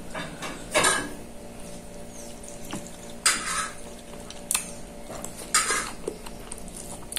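Eating rice by hand from a ceramic plate: four or five short scrapes and clinks of fingers and food against the plate, each lasting under half a second.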